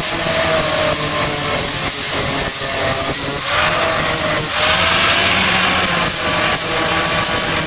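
Electric grinder grinding iron, running continuously; its high whine breaks off briefly a few times and its pitch dips and recovers as it bites into the metal.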